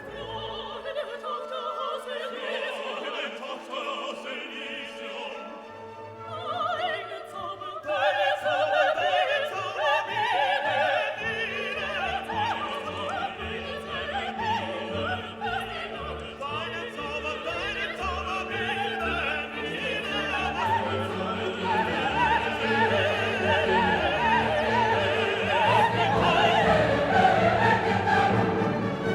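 Classical music: an orchestra with singing voices, getting fuller and louder about eight seconds in.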